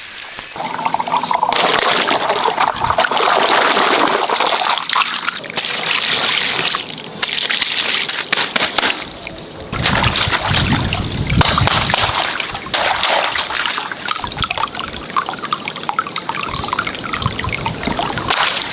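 Water running and splashing, a steady trickling and sloshing with a brief lull about nine seconds in.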